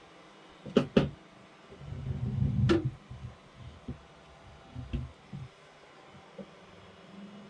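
A desktop PC case being put back together: two sharp clicks about a second in, then about a second of scraping and rustling ending in a click, then a few light knocks.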